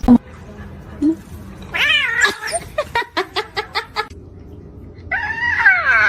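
A domestic cat yowling in two drawn-out, wavering calls, the second one falling in pitch. Between the calls comes a quick run of about eight sharp clicks.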